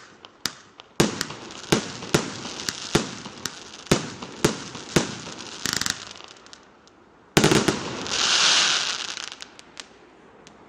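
Chao B49S 49-shot consumer fireworks cake firing: shots going off about twice a second, a short rattling burst near six seconds, then a louder final burst about seven and a half seconds in with a hiss that fades away over the next couple of seconds.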